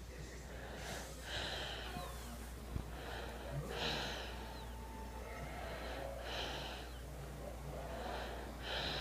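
Slow, soft breathing close to the microphone: four noisy breaths, about two and a half seconds apart.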